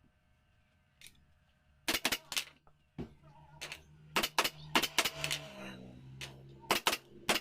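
Sharp clicks of an upholstery staple gun firing staples into the sofa frame, in quick irregular bursts. A low hum runs underneath from about three seconds in.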